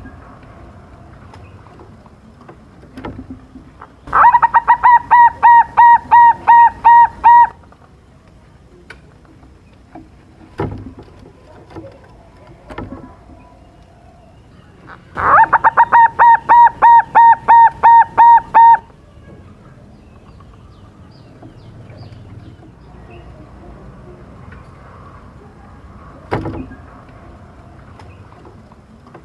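Silver zebra dove (perkutut), a young bird, singing its rapid cooing song twice, each bout a quick run of about a dozen evenly spaced notes lasting roughly three and a half seconds.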